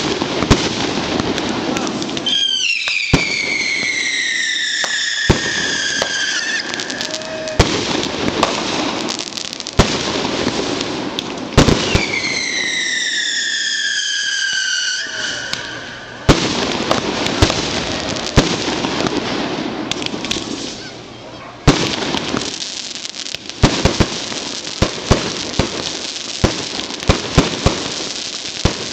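Consumer fireworks going off: a steady hissing spray of sparks broken by sharp bangs, and twice a long whistle that falls in pitch over three to four seconds. Near the end comes a rapid run of pops and bangs as aerial bursts go off.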